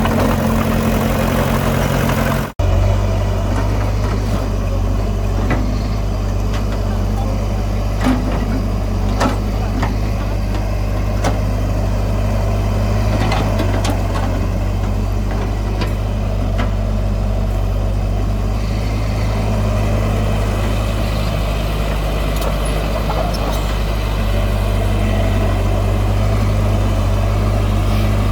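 Heavy diesel engine of earth-moving machinery running steadily, with scattered light clanks and knocks. The sound drops out for an instant about two and a half seconds in, then the engine carries on at a slightly different pitch.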